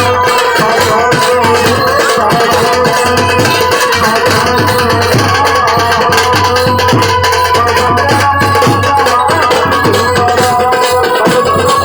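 Loud music with a steady, dense rhythm of percussion under sustained melodic tones.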